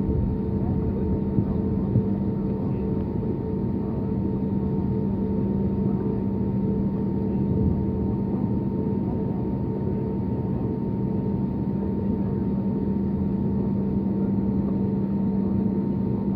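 Airbus A320 cabin noise heard over the wing while the plane taxis: the engines run at a low, even setting, a steady hum with a constant tone in it.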